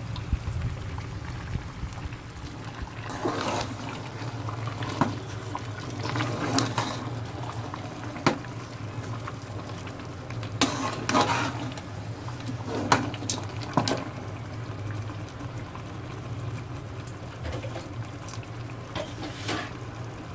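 A metal slotted spoon scraping and knocking against an aluminium pot as a thick paste of mashed chana dal is stirred and fried in ghee, with a low bubbling sizzle throughout. The knocks come irregularly, a dozen or so sharp clacks over a steady low hum.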